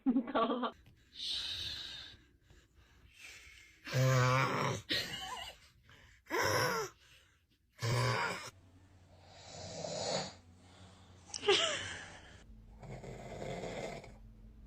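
A man snoring: a run of separate snores a couple of seconds apart, the loudest about four and eight seconds in.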